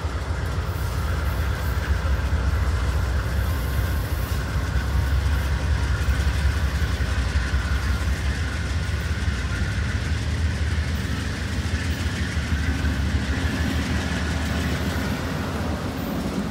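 Amtrak passenger train rolling past behind an ACS-64 electric locomotive, the cars going by close: a steady low rumble of wheels on rail.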